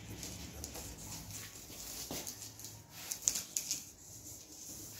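Small crackles and clicks of a self-adhesive LED strip being pressed by hand into a plastic cable channel, with a cluster of sharper clicks about three seconds in.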